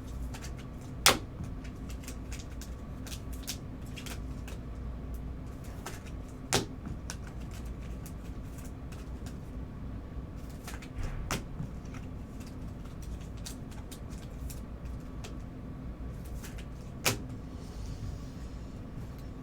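Trading cards being handled and sorted on a table: light taps and rustles, with a few sharper clicks about 1, 6.5, 11 and 17 seconds in, over a steady low hum.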